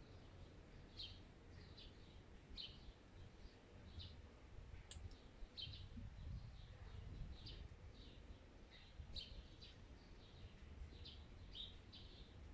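Sparrow chirping faintly, short chirps repeated about once or twice a second, with a single sharp click about five seconds in.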